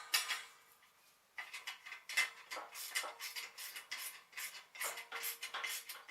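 Metal parts and tools clinking and rattling: a sharp knock at the start, then from about a second and a half in a quick, irregular run of clinks, several a second.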